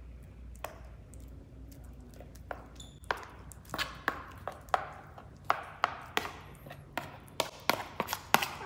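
Metal spoon clicking and scraping against a plastic plate as sambal is scooped off it onto food, a string of short sharp clicks that come thicker and louder from about halfway through.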